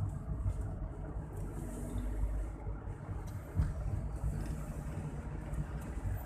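A car driving, heard from inside the cabin: a steady low engine and road rumble, with one brief thump about three and a half seconds in.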